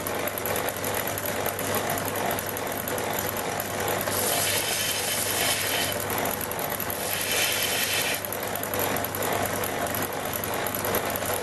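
Linisher (abrasive belt grinder) running on its electric motor with a steady hum, while the end of a steel shaft is held to the belt to grind a chamfer. The grinding hiss gets louder twice, about four seconds and seven seconds in.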